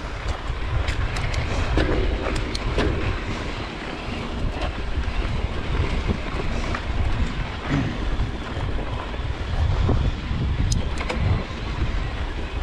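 Wind buffeting the microphone of a mountain bike rolling over a dirt and gravel trail, with tyre crunch and scattered clicks and knocks from the bike rattling over the rough ground.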